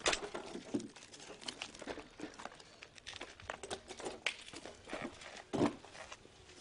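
Footsteps and handling on broken concrete rubble: irregular small crunches, scrapes and clatters of debris, wood and cloth, with a louder knock about five and a half seconds in.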